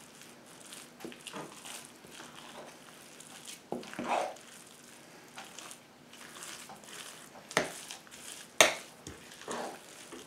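Stirring a wet cornbread dressing mix in a bowl: a few separate quiet scrapes and knocks of the utensil against the bowl, the sharpest one a little after the middle.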